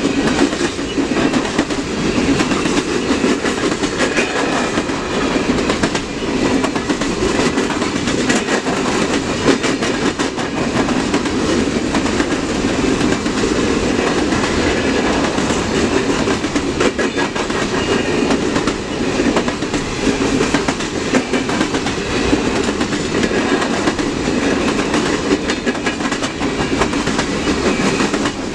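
CN train's cars rolling steadily past on the rails, with a continuous wheel noise and many irregular clicks of wheels over rail joints.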